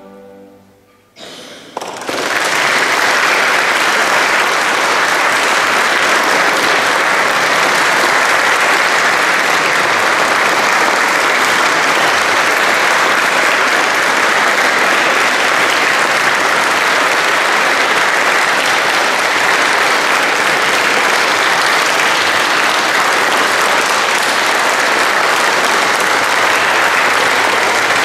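The last note of the music dies away, and about two seconds in an audience breaks into steady applause that keeps on.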